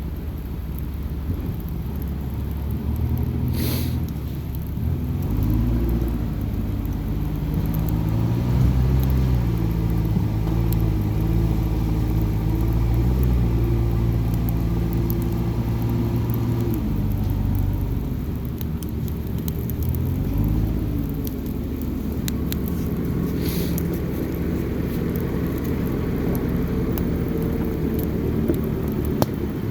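Low rumble of a running engine whose pitch slowly rises and falls, over faint crackling from a burning campfire, with two brief hisses.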